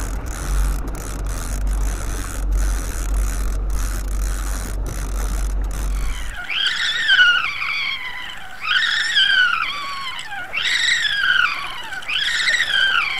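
Steady low rumble of the boat under way at sea, with wind on the microphone. About six and a half seconds in, it cuts off and gives way to a high squeal that falls in pitch and repeats about every two seconds.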